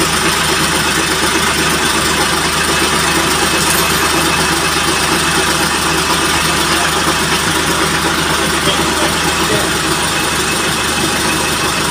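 Boom truck's engine idling steadily, kept running to work the crane.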